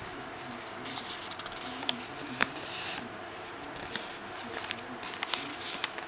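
Crisp paper pages of a handmade journal being turned and handled: short rustling swishes of paper with sharp little ticks, the loudest about two and a half seconds in.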